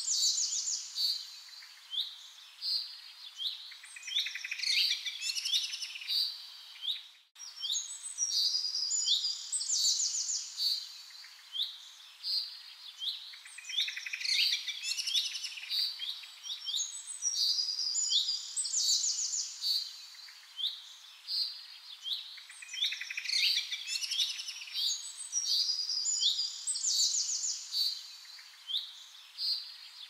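Small birds chirping and trilling in a busy, continuous chorus of high, quick notes, with a brief dropout about seven seconds in.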